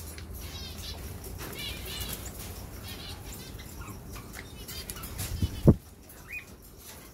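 Small cage birds chirping repeatedly in short calls, with one loud thump about five and a half seconds in.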